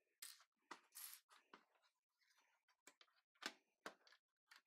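Quiet, irregular clicks and clatters of loose plastic LEGO pieces being handled on a tabletop, picked from a pile and pressed onto a baseplate.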